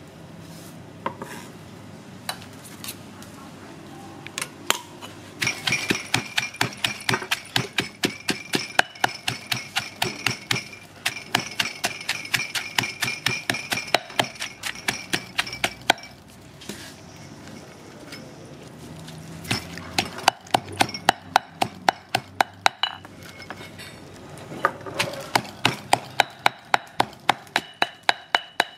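Stone pestle pounding green chillies and garlic in a stone mortar: quick, even strikes, about three a second, in runs broken by a pause of a few seconds. A few scattered knocks come before the pounding starts.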